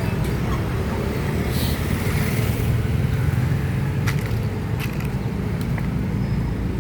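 Street traffic noise, a steady low rumble, with a couple of sharp clicks about four and five seconds in.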